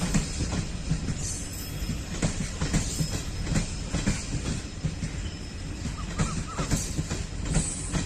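Passenger coaches of an arriving express train rolling past, a steady low rumble with repeated clacks of the wheels over the rail joints.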